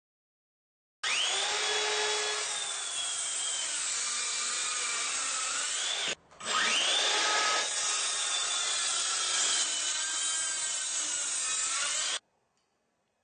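Makita DHS660 18V brushless cordless circular saw cutting through wood, in two long stretches with a brief break about six seconds in. Each stretch opens with a rising whine as the blade comes up to speed, and the pitch sinks a little as the blade works through the board. The sound cuts off suddenly near the end.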